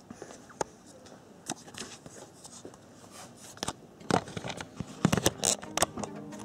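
Handling noise from a camera being picked up and carried: scattered clicks, knocks and rustling, busier and louder in the last couple of seconds.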